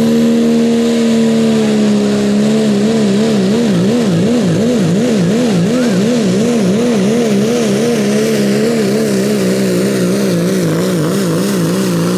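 Diesel engine of a second-generation Dodge Ram pull truck at full throttle, pulling a sled. The high, steady engine note starts wavering up and down about twice a second a couple of seconds in, as the revs surge and sag under the load.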